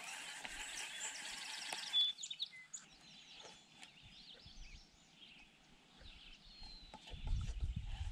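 Small birds chirping faintly around a quiet lake, with a steady hiss and a brief rapid ticking in the first two seconds. A low rumble rises near the end.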